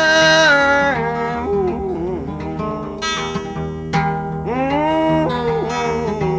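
Blues music between sung lines: guitar accompaniment under a sliding, bending melody line. A held note opens it, and a long swoop rises and falls about two-thirds of the way through.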